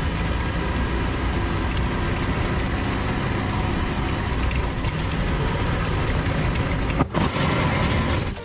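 Daewoo Lanos sedan rolling slowly on tiny wheels over a gravel road: the engine running with a steady rattling, grinding noise from the small wheels on the surface. There is a short break about seven seconds in.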